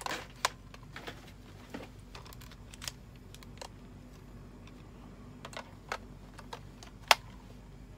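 Irregular small plastic clicks and taps as toy pieces are handled and fitted into a plastic display stand, the loudest a single sharp click near the end.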